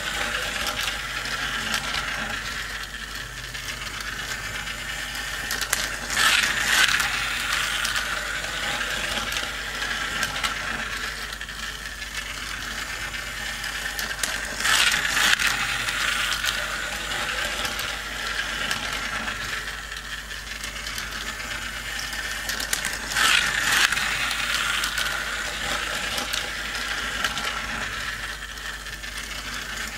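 Motorized plastic toy car race track running: a small geared motor whirs and clicks steadily as it carries the toy cars around. A louder clatter comes three times, about every eight seconds.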